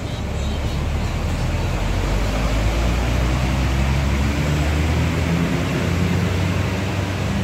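Tour bus diesel engine running close by: a steady, loud low drone with road noise and no horn.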